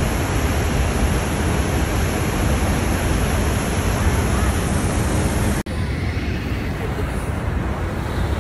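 Steady roar of Niagara Falls: loud falling water with no rhythm. It cuts out for an instant just past halfway and comes back a little duller.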